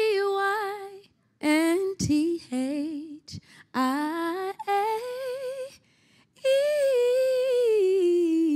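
A woman singing solo and unaccompanied, improvising a short tune on her own name: several short phrases with vibrato and gaps between them, then one long held note, from about six seconds in, that slides downward.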